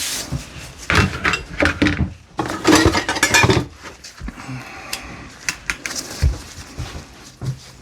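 Metal hand tools clinking and clattering against each other as they are handled and sorted out of a box, in bursts of knocks with a quieter stretch in the middle.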